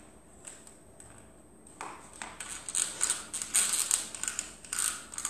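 Bow drill being worked: the wooden spindle is driven back and forth in the fireboard with a rhythmic wood-on-wood squeaking scrape at each stroke. It starts about two seconds in and gets louder with each stroke.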